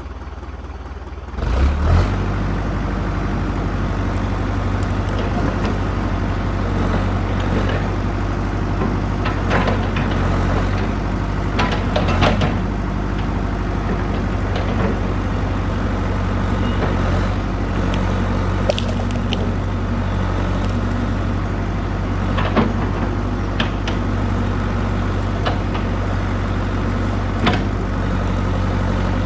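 Old backhoe's engine running steadily with a low hum, coming on abruptly about a second and a half in, with occasional sharp metallic clanks and knocks over it.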